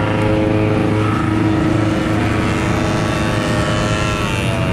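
Vintage two-stroke snowmobile engines running as a line of sleds on wheel kits drives past one by one. Near the end the engine pitch bends as one sled goes by close.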